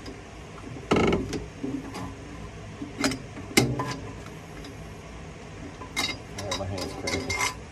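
Sharp metal clicks and knocks of a hook spanner wrench, levered on a pipe extension, catching and turning the threaded adjusting collar of a rear coilover to lower it. A few separate strikes, with a quicker cluster near the end.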